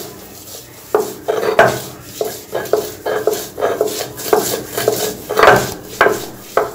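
A stone roller grinding on a shil-pata, the textured flat grinding stone, mashing fried fish. It rubs and knocks against the slab in quick repeated strokes, about two to three a second, starting about a second in.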